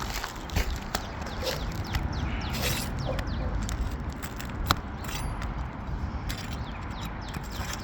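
Brittle asphalt roof shingle being worked loose by hand: scattered crackles, scrapes and clicks, with one sharp click near the middle, over a steady low rumble.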